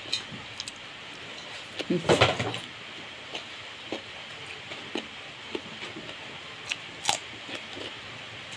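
Steady rain hissing in the background, with small close clicks and smacks of someone chewing a mouthful of papaya salad and noodles. A short burst of voice about two seconds in, and a sharper click about seven seconds in.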